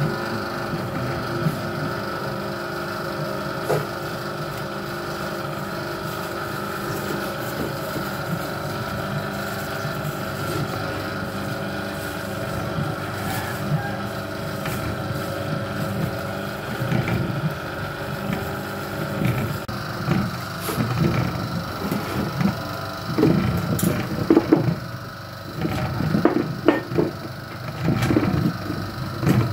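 Tiwul granulator running: its electric motor and drive turn the tilted stainless-steel pan with a steady whine. From about halfway through, irregular knocking and rattling join in and grow stronger.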